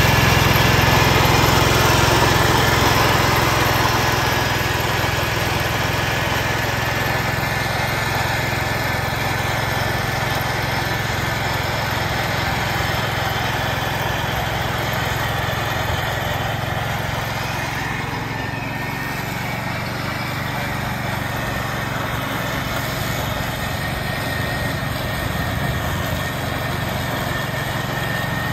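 1969 Ford 140 garden tractor's engine running steadily under load while its mower deck blades mulch dry leaves. Louder at first, a little fainter from about four seconds in.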